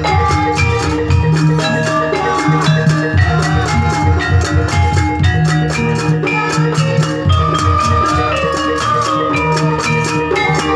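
Lively Javanese gamelan-style dance music: drums keep a dense, steady beat under ringing metallophone notes, with a wavering melody line above.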